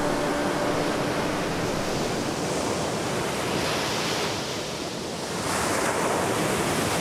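Sea waves breaking and washing up the shore: a steady rush of surf, with waves crashing closer in about four seconds in and again, louder, about five and a half seconds in.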